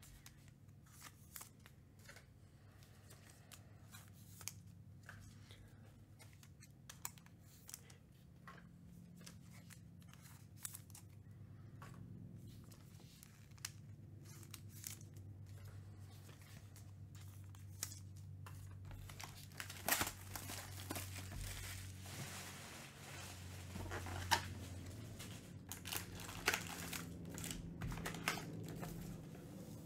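Plastic shrink-wrap crinkling and tearing as a sealed trading-card box is unwrapped, with scattered sharp crackles and rustles. They grow busier and louder over the last ten seconds, as the cardboard box is handled and its lid opened.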